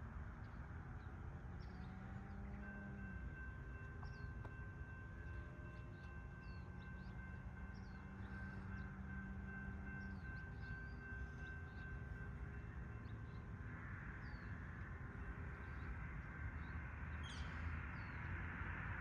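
Distant BNSF freight train approaching: the faint, steady hum of its diesel locomotives, with a few held tones, and the noise growing louder over the last few seconds. Small birds chirp throughout.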